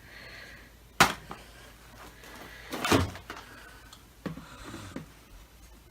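Three sharp knocks and clunks with light rustling as the plastic parts and filter of a Dyson DC25 vacuum cleaner are handled.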